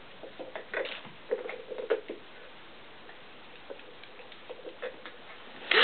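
Puppies' claws clicking and tapping on a hardwood floor as they trot about, in two scattered runs of light ticks. A brief faint whine comes about a second and a half in.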